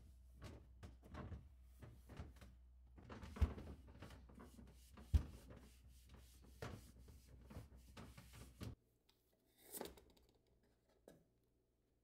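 Cloth wiping and rubbing a clear plastic refrigerator drawer in short strokes, with two sharp knocks of the plastic about two seconds apart. A low hum underneath cuts off abruptly about three quarters of the way through, followed by a few faint handling sounds.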